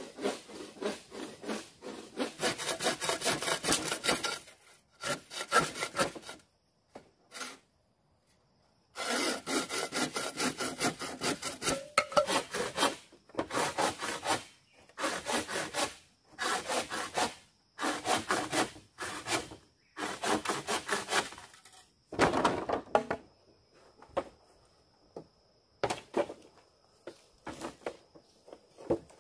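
A saw cutting through bamboo in runs of quick back-and-forth strokes, with short pauses between the runs.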